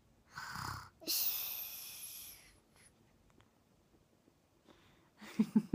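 A two-year-old's fake snore: a short snorting breath in, then a long hissing breath out that fades away. Near the end a rapid run of pulsing voiced sounds begins.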